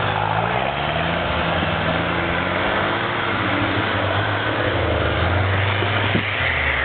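Puch G off-roader's engine running hard under load, revving up and down as it ploughs through snow-covered bog, over a steady rushing noise.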